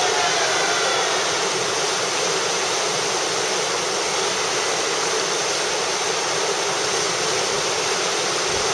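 River rapid whitewater rushing steadily.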